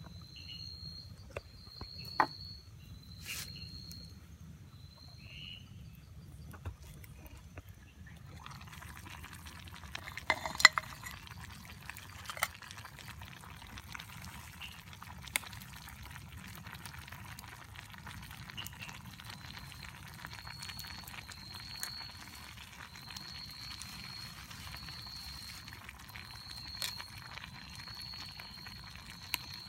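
Vegetables frying in a small metal pan over a campfire: a steady sizzle that starts about eight seconds in, with sharp clinks of a metal spoon. A short high chirp repeats about once a second in the first few seconds and again through the latter part.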